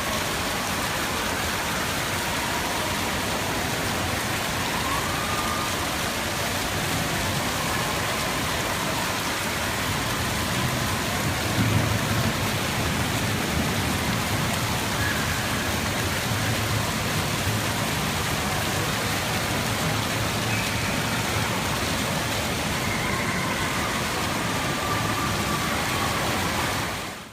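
Steady rushing noise, even across the range, with a brief louder swell about twelve seconds in, cutting off suddenly at the end.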